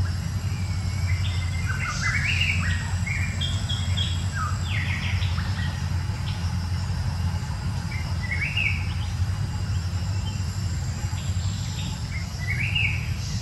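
Birds chirping in short bursts, several calls stepping up in pitch, over a steady low background hum.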